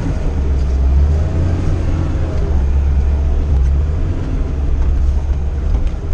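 A VAZ Zhiguli's engine running, heard from inside the cabin as a steady low drone.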